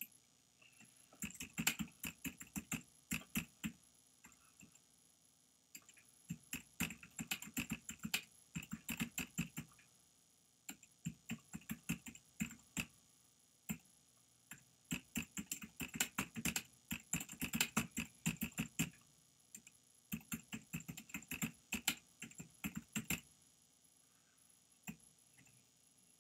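Computer keyboard typing: quick runs of keystrokes with short pauses between them as a sentence is typed out, stopping a few seconds before the end.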